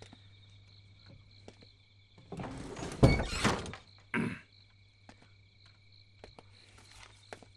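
Crickets chirping steadily in the background. About two seconds in comes a rustle that ends in a loud thunk, and a second shorter knock follows about a second later.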